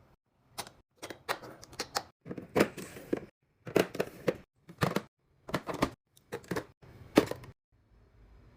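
Packaged snacks and drinks being handled and set down during a restock: a quick, irregular run of sharp clacks and taps that stops near the end, after which a faint low hum comes in.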